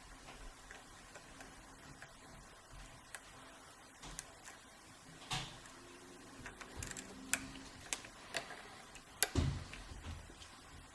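Small irregular metallic clicks and scrapes of a lock pick and tension wrench working the pins inside an old Wilson Bohannan brass padlock during single-pin picking, with one sharper click about nine seconds in.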